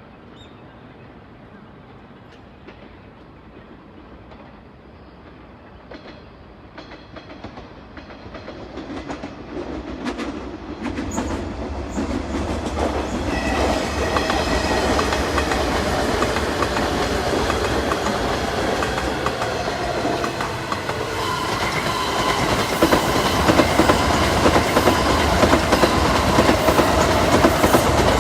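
Kintetsu Nara Line electric train approaching and running past, growing loud from about a third of the way in, with wheels clicking over rail joints and a steady motor hum.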